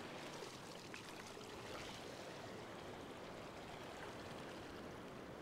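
Faint, steady wash of surf running over the sand in the shallows.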